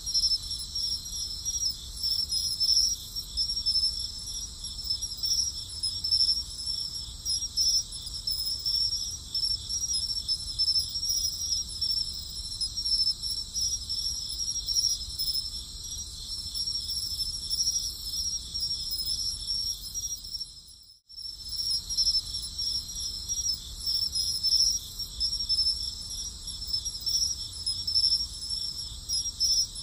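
Crickets chirping in a steady, high-pitched, rapidly pulsing trill. The sound cuts out for a moment about 21 seconds in, then starts again.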